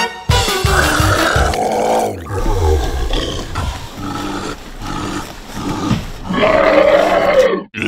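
Growling, roaring monster voices: a horror sound effect for the zombie heads. One growl comes near the start, and a louder, drawn-out roar comes about six seconds in and cuts off sharply.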